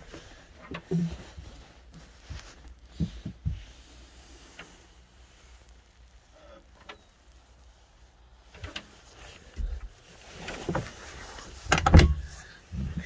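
Scattered knocks and bumps of a wooden cabin door and fittings being handled in a small boat cabin, a few early, then a cluster of louder thumps near the end.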